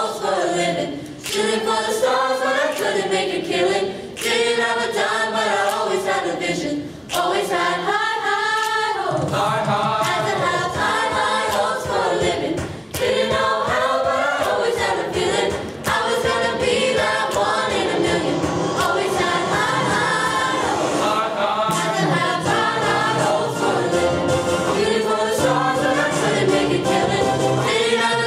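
A school chorus of teenage boys and girls singing together, in phrases with short breaks between them.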